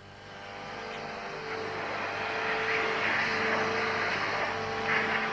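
Numerically controlled milling machine cutting an aircraft part. A steady whine runs over a rushing machining noise that builds up during the first couple of seconds, and the whine breaks off briefly about three seconds in.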